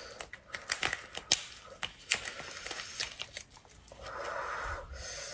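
Cooked lobster shell being broken apart by gloved hands: a quick run of sharp cracks and crackles, then a softer, denser tearing and scraping sound about four seconds in as the shell is pulled open.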